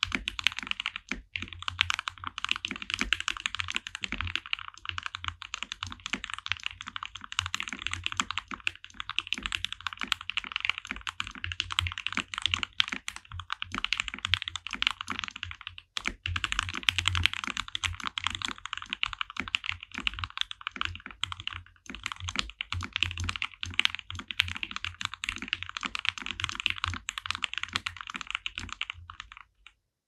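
Kemove Snowfox DK61 mechanical keyboard being typed on quickly and continuously, a dense patter of keystrokes as a sound test, with a brief break about sixteen seconds in.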